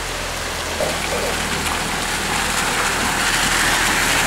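Heavy downpour: a steady hiss of rain falling on surfaces, swelling louder about three seconds in, with a low steady hum underneath.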